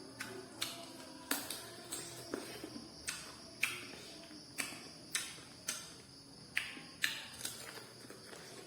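Close-up mukbang eating sounds: wet chewing, crunching and mouth smacks while eating chicken feet, sharp crackly clicks about twice a second.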